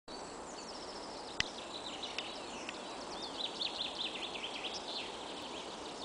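Several small songbirds chirping and trilling in quick high notes, busiest in the middle, over a steady background hiss. A single sharp click about a second and a half in.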